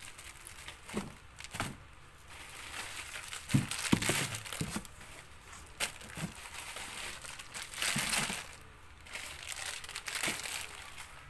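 Packaging crinkling and rustling in irregular bursts as items are handled and packed back into a box, loudest about four seconds in and again around eight seconds.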